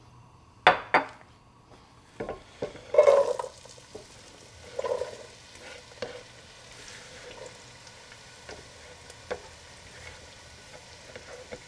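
Diced onion being scraped off a wooden cutting board into a pot of hot cooking oil. A few sharp knocks come first. About three seconds in the onion starts to sizzle in the oil, with more scrapes and taps as the last pieces are pushed in.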